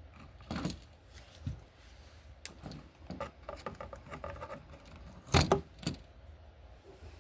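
Scattered small clicks, taps and rattles of hands and tools handling a wall receptacle and its wires, with a louder knock about five seconds in.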